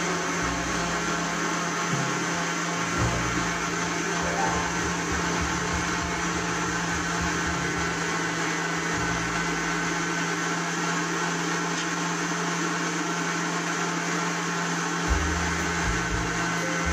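Electric stand mixer running steadily, its beater whipping softened butter into a buttercream as custard is added, with a few light knocks.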